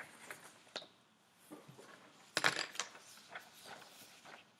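Sheets of paper being handled on a desk: soft rustles and small clicks and scrapes at irregular moments, the loudest cluster about two and a half seconds in.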